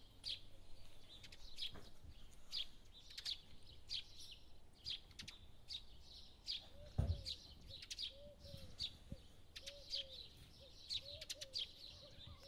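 Short, high chirps repeating about twice a second, bird-like, over a quiet room. A dull thump comes about seven seconds in, followed by a run of short, lower rising-and-falling calls over the next few seconds.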